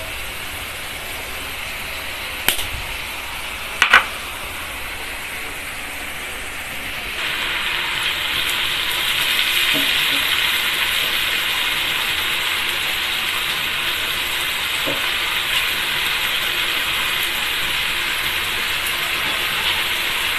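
Chicken pieces sizzling in a frying pan on a gas stove as they are stirred and turned with a wooden spatula: a steady hiss that starts about seven seconds in. Before it there is only a fainter hiss with two sharp clicks.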